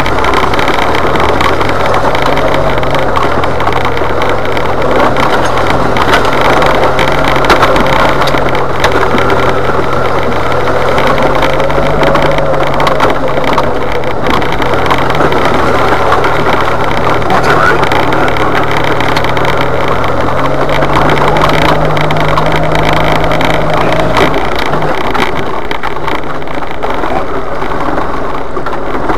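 Jeep Wrangler's engine running under load while crawling up a dirt trail, heard from inside the cab. The engine note rises gradually, then drops about three-quarters of the way through.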